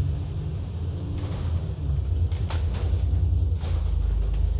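ADL Enviro 400 double-decker bus heard from on board while driving: a steady low engine and road rumble, broken by several sharp rattles.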